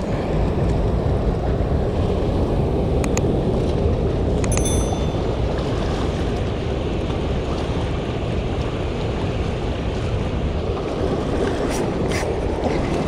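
Steady rush of water pouring through a dam's open spillway gates and churning over the rocks below, with a few brief clicks.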